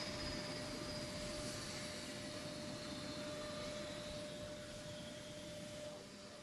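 Lockheed C-130 Hercules turboprop engines winding down after shutdown: a high turbine whine slowly falling in pitch over a steady rushing noise and a steady hum, the whole growing gradually quieter.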